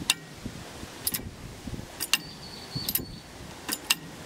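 About six sharp metallic clacks, roughly one a second, as the stainless steel weigh-hopper gates of a Yamato Dataweigh linear weigher are worked by hand and snap open and shut. The clack about two seconds in rings briefly. Wind rumbles on the microphone underneath.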